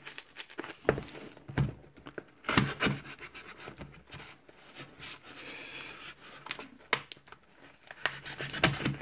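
A knife blade scraping and cutting along the taped edge of a cardboard shipping box, with the cardboard and tape rustling and a few sharper clicks and knocks scattered through as the box is handled.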